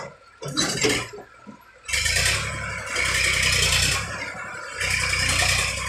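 A load of earth sliding out of a raised tractor tipping trailer: a rushing scrape with a low rumble that starts about two seconds in, dips briefly and picks up again near the end.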